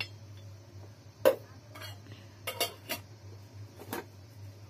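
Kitchen utensils knocking and clinking against a stainless-steel mixing bowl while spices are added: a few sharp clinks, the loudest about a second in, over a faint low hum.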